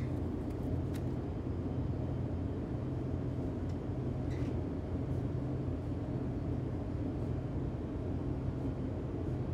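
A steady low rumble with no change in level.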